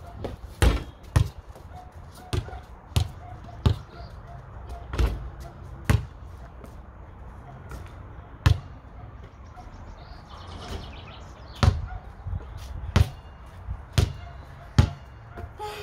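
A basketball bouncing: a string of sharp, irregularly spaced thuds.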